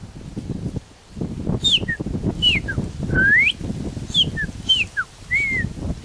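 Chopi blackbird (graúna) singing: a phrase of clear whistled notes, mostly short downward slurs with one upward-sweeping whistle in the middle, starting about a second and a half in. A low rumbling noise runs underneath.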